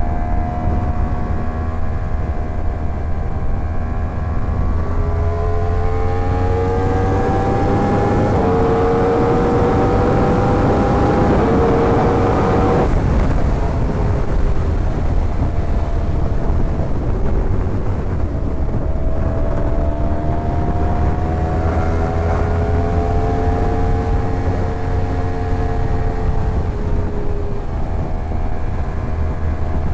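Yamaha R1's inline-four engine pulling under way: its pitch climbs, dips as it shifts up about eight seconds in, climbs again, then eases off, and later rises and falls once more. A heavy, steady wind rumble on the microphone runs underneath.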